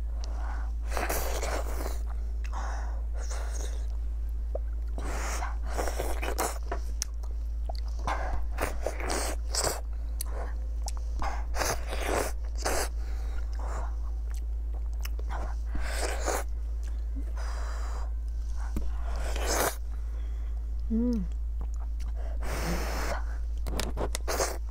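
Close-miked biting and chewing of a large piece of sticky rice: soft, wet mouth sounds in irregular bursts, over a steady low hum.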